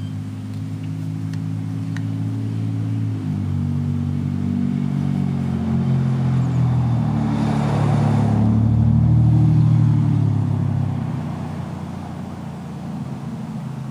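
An engine-driven vehicle running steadily, growing louder to a peak about two-thirds of the way through and then fading as it passes by.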